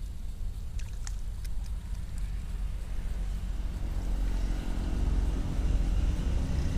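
A motor engine's low rumble, growing louder over the second half, with a few light clicks about a second in.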